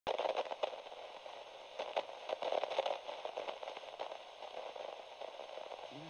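Crackling static: a steady hiss with many irregular sharp clicks, busiest in the first three seconds.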